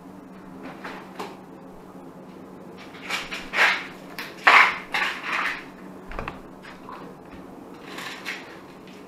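A cat eating fish off a small plate on a tile floor: a few short clatters and scrapes of the plate, loudest between three and five seconds in, with another near the end, over a faint steady low hum.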